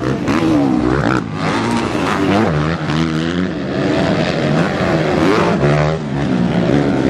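Motocross dirt-bike engines revving, their pitch rising and falling over and over as the throttle opens and closes through the corner, with more than one engine heard at once.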